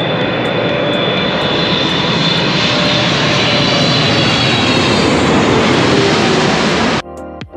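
Jet airliner passing close by, its engines roaring with a high fan whine over the top; the sound cuts off suddenly near the end.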